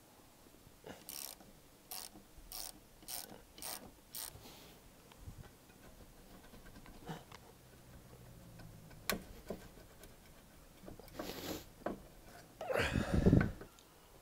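Fine-toothed Halfords ratchet wrench worked back and forth on a rear brake caliper bolt, its pawl clicking in short runs about twice a second. A sharp click follows later, and a louder clatter of tools near the end.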